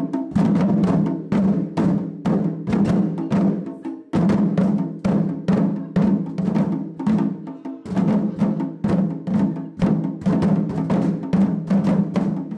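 Taiko ensemble striking large barrel drums (nagado-daiko) with wooden bachi in a fast, steady rhythm, each stroke ringing deep. The playing pauses briefly about four and eight seconds in.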